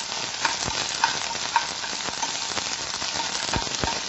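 Raisins frying in hot ghee in a frying pan: a steady sizzle full of small crackling pops, while a spoon stirs them. There are a few soft knocks, two close together near the end.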